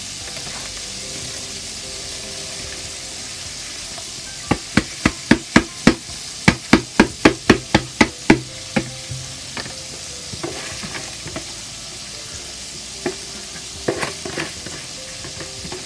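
A spoon stirring rice in a steel pot, knocking against the side of the pot about four times a second for several seconds in the middle. Under it is a steady sizzle of frying.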